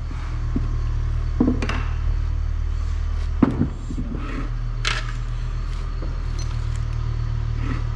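Loose metal parts clinking and knocking several times as they are handled, the loudest knock about three and a half seconds in, over a steady low hum.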